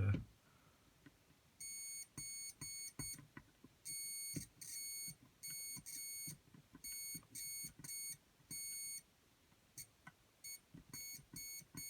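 Multimeter continuity buzzer beeping on and off in irregular short and longer beeps as the probes touch and lift, showing that the dried conductive-glue trace conducts. Faint ticks sound between the beeps.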